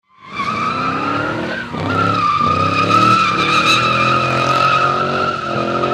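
Car tyres squealing in a long skid, a steady high-pitched screech, over a car engine revving up and down. It swells in at the start and dips briefly about one and a half seconds in.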